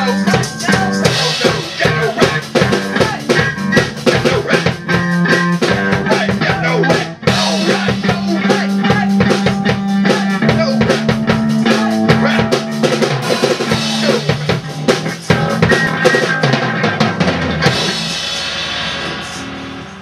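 Amateur rock band jamming loudly on drum kit and electric guitar, with a steady pounding beat. Near the end the drumming stops and a ringing wash sustains.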